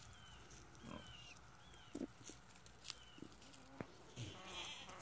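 Near silence outdoors, broken by a few faint, high, short chirps and some soft ticks.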